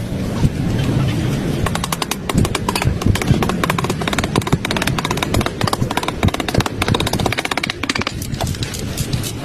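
A rapid, irregular series of sharp clicks and knocks over a low rumble, thickest through the middle and thinning near the end.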